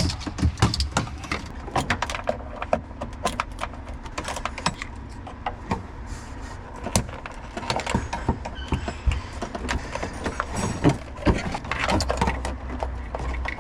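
Irregular clicks, knocks and rattles of tools and loose parts being handled while car interior trim is taken apart.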